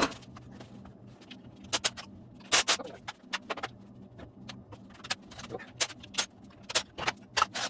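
Metal hand tools and engine parts clinking and clicking at irregular intervals as a 5.3-litre LS V8 is taken apart, the loudest clank about two and a half seconds in, over a faint steady hum.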